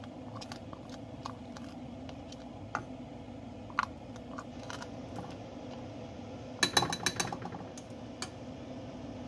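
Light taps and clinks of a measuring cup and a metal spoon against a cooking pot as corn syrup is poured over sugar. A quick cluster of sharper clinks comes about two-thirds of the way through, over a steady low hum.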